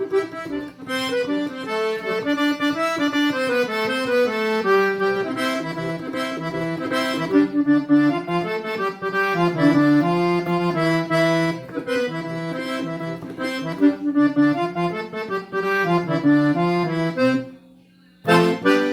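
Accordion playing an instrumental melody over sustained bass notes. It breaks off about a second before the end, then comes back briefly with a loud chord.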